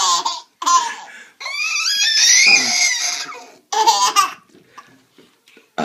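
Baby laughing in bursts: short belly laughs, then one long high-pitched laugh that rises in pitch, and a last burst about four seconds in.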